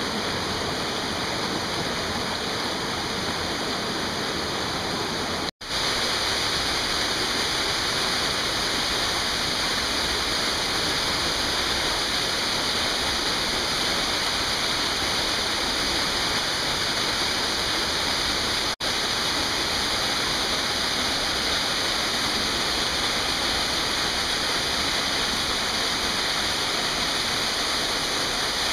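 Steady rush of a mountain stream pouring over small waterfalls and cascades. It drops out for an instant about five and a half seconds in and again briefly near nineteen seconds, and is a little louder after the first break.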